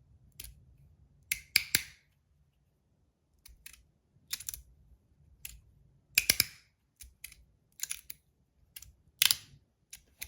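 Titanium Modusworks Rapt slider fidget being worked by hand: a run of sharp metal clicks at an irregular pace, some in quick pairs or triples, the loudest cluster about six seconds in.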